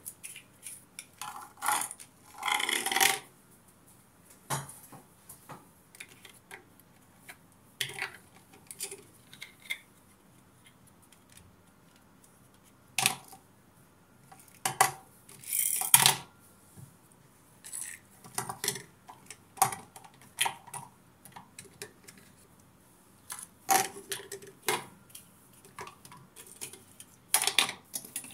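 Small toy tanks and jets being picked up, set down and slid across a hard surface by hand: scattered light clicks and clacks with short scraping rasps, the longest about two to three seconds in.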